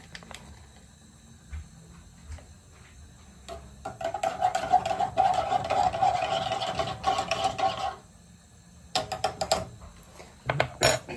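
Ground coffee being spooned from a foil coffee bag into a copper cezve: a steady scraping sound for about four seconds in the middle, then crinkling of the foil bag and light spoon clicks near the end.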